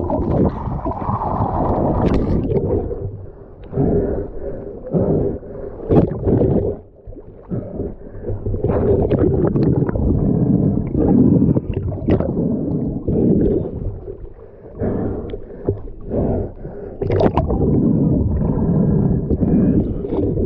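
Muffled underwater rush and gurgle of water against the camera housing as a freediver kicks his fins and pulls himself up a float line, coming in irregular surges.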